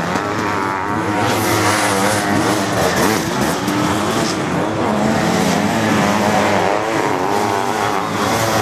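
Motocross sidecar outfits' engines running hard under racing throttle, the pitch rising and falling continuously as the riders open and close the throttle.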